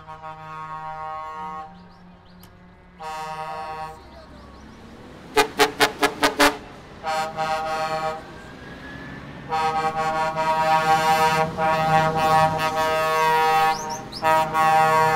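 Truck air horns on Scania tractor units blowing as the trucks drive out. A few held blasts, then a quick run of five short toots about five seconds in, then long blasts to the end, over the low running of diesel engines.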